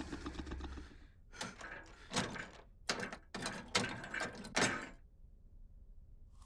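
A series of about seven short, sharp knocks or thuds, irregularly spaced, each dying away quickly.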